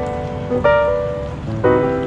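Background piano music, a chord struck about once a second and left to fade.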